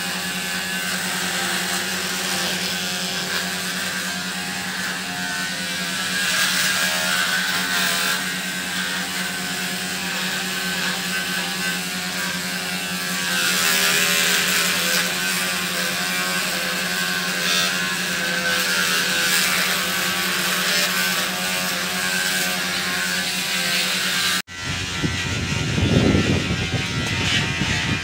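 Electric dog hair clipper running with a steady buzzing hum as it shears the long fur on a dog's leg. The sound cuts off suddenly near the end and a different, lower sound follows.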